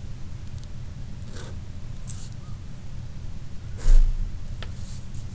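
Marker pen drawing short straight lines along a ruler on paper, a few quick scratchy strokes. There is a louder stroke with a low thump about four seconds in, followed by a small click.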